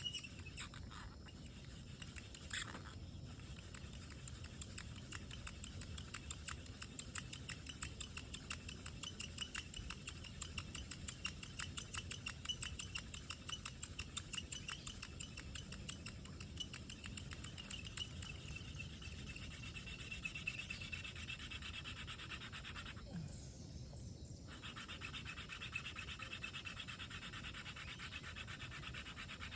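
Hand drill fire by friction: a wooden spindle spun back and forth between the palms, grinding in the notch of a wooden hearth board with a fast, steady rubbing. It breaks off for about a second near the end and then resumes. The board and spindle are heating up, just before smoke starts to show.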